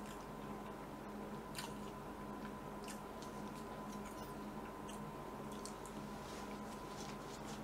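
Faint close-up eating sounds: soft squishes as sauce is squeezed from a plastic squeeze bottle onto a cream-topped pastry, then chewing with scattered small wet mouth clicks. A steady low electrical hum runs underneath.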